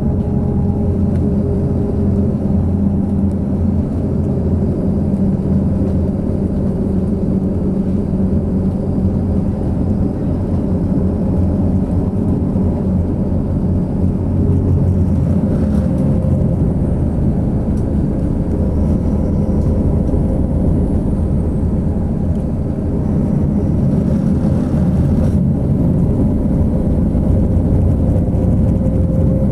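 Rail-replacement coach heard from inside the cabin while driving: a steady low drone of engine and tyre noise, getting a little louder about two-thirds of the way through.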